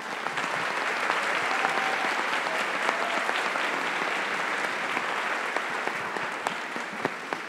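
Audience applauding, many hands clapping in a dense steady patter that thins out near the end.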